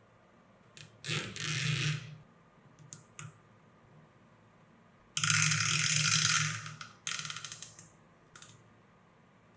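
A ratcheting mechanism clicking rapidly in two longer runs, about a second in and about five seconds in, with a few short clicks between them. The second run trails off into separate clicks.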